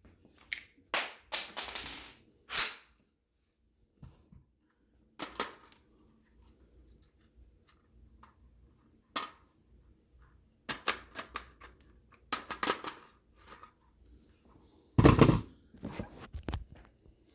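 Sharp clicks and clacks of an IWI Tavor X95 bullpup rifle being handled, coming in scattered clusters with pauses between them; the loudest cluster of knocks comes near the end.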